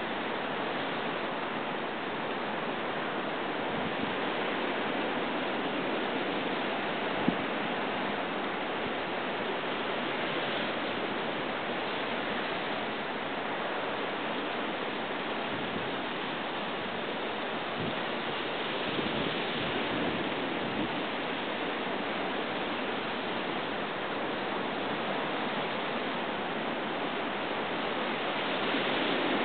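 Steady rushing of surf breaking on a rocky shore, swelling a little now and then, with one sharp click about seven seconds in.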